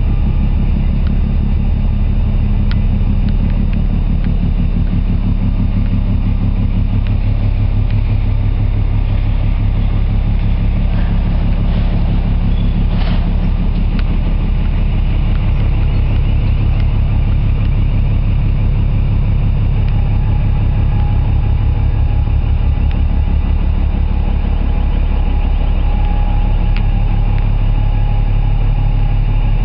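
Heavy diesel machinery running steadily with a low, even rumble, as from a ship's engines or generators in port.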